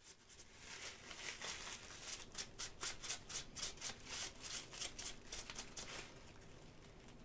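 A crumpled paper towel rubbed briskly over an unpainted resin model part in quick, even strokes, about four or five a second, stopping about six seconds in.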